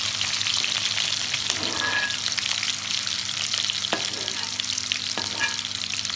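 Sliced onions frying in hot oil in a metal karahi: a steady crackling sizzle. A metal slotted spoon stirs them, knocking against the pan a couple of times in the second half.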